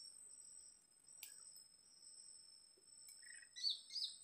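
Faint, steady high-pitched insect chirring holding two thin tones, with a few short bird chirps near the end and a single light click about a second in.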